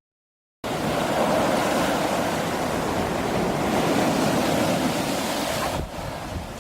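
Sea surf washing onto the beach, mixed with wind on the microphone: a steady rushing that starts suddenly after a brief moment of dead silence and falls away near the end.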